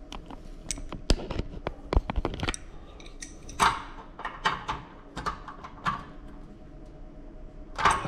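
Metal clicks and clinks of a wrench against the nut of a spring-loaded pop-pin knob on a gym rack as it is tightened: a quick run of sharp clicks in the first couple of seconds, then a few short scrapes, a quieter stretch and one more clink near the end.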